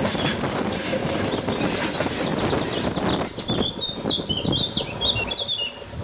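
Wagons of a freight train rolling past directly overhead with a dense rumble and rattle, which falls away about three seconds in; after it, small birds chirp in short repeated calls.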